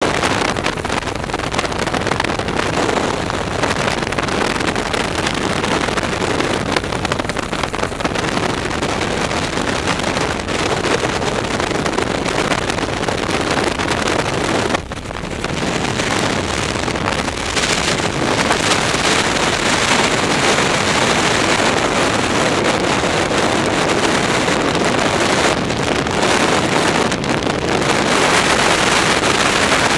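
Loud, steady rush of wind over a skydiver's body-worn camera microphone, as in freefall. The noise dips briefly about halfway through, then comes back brighter and more hissy.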